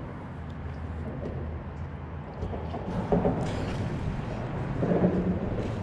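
Steady low rumble with wind noise on the microphone, and a few soft knocks and brief louder patches about three and five seconds in.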